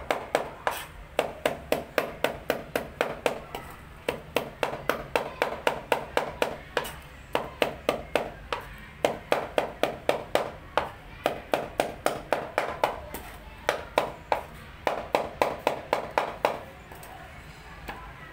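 Knife chopping rapidly on a cutting board: quick, even knocks about five a second, in runs with short pauses between, stopping near the end.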